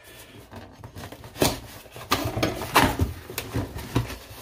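Cardboard box being opened by hand: rustling and scraping of cardboard, with several sharp crackles from about a second in.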